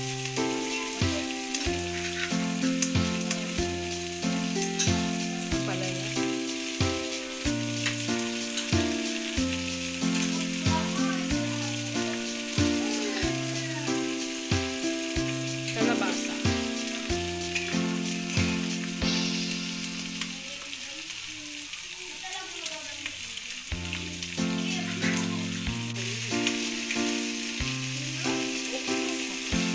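Pork and vegetables sizzling as they are sautéed in hot oil, with a spatula clicking and scraping against the pan as they are stirred. Background music plays underneath and drops out for a few seconds past the middle.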